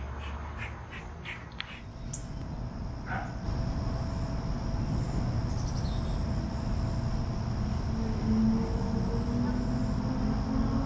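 A quick run of about eight short, sharp animal calls in the first two seconds, about four a second, followed by a steady high-pitched insect drone over a low rumble.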